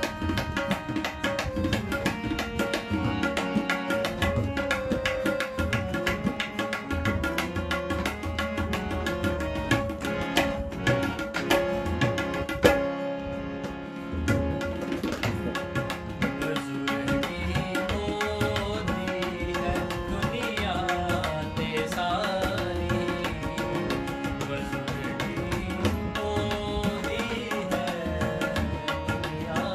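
Tabla played in a fast, steady rhythm under acoustic guitar chords. There is one loud stroke just before the middle, then a brief break of about a second before the rhythm picks up again.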